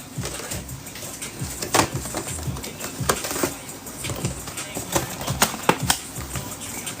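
Scattered light clicks and taps of handling trading cards and hard plastic holders, the sharpest ones about 2, 3 and 5 to 6 seconds in, over a low background hum.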